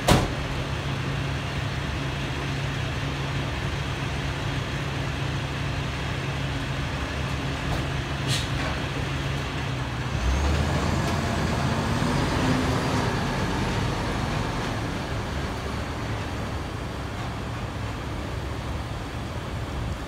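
Rear-loader garbage truck's diesel engine idling, with a sharp bang right at the start and another short sharp sound about 8 seconds in. About halfway through the engine revs up as the truck pulls away, then fades as it drives off.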